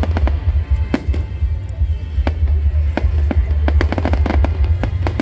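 Fireworks going off: an irregular series of sharp bangs and crackles, several clustered together about four seconds in, over a constant low rumble.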